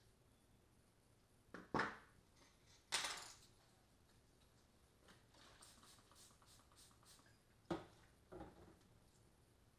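A few light knocks and clatters of hand tools and small metal parts being set down on a paper-covered table, the loudest about three seconds in, with faint rustling and ticking in between.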